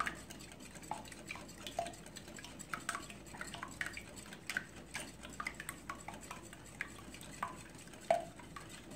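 Wire whisk beating raw eggs in a glass mixing bowl: a continuous run of quick, uneven clicks and small pings as the wires strike the glass.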